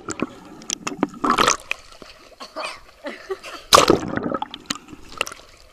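Swimming-pool water heard through a camera held underwater: muffled splashing and bubbling from swimmers, with louder surges of splashing about one and a half seconds in and again near four seconds.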